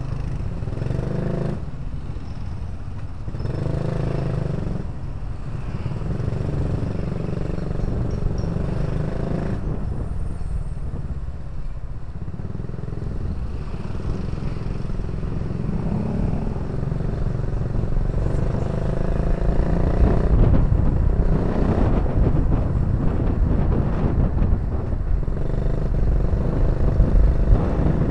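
Motorcycle engine running and revving up in several spells as the bike moves through traffic, heard from the bike itself. Wind buffeting on the microphone grows louder in the second half as the bike picks up speed.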